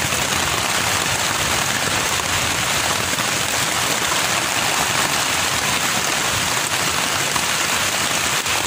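Steady rain falling on a tent's rain fly, heard from inside the tent: an even, unbroken hiss at a constant level.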